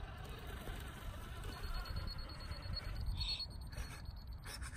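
Radio-controlled 6x6 truck (Cross-RC UC6 Ural 4320 kit) crawling through dry grass and twigs. Its electric drive gives a thin, steady high whine from about a second and a half in, over rustling of brush against the truck, with a couple of short crackles near the end.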